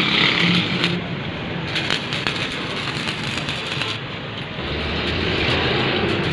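Stick welding on a steel frame: the electric arc crackling steadily as the electrode burns, with a low hum that grows louder about two-thirds of the way in.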